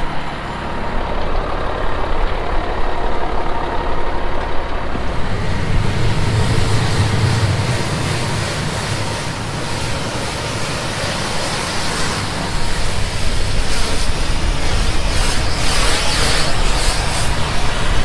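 Pressure washer at work: an engine drones steadily, and from about five seconds in the high-pressure water jet hisses as it blasts the grime off a semi truck's frame and wheels.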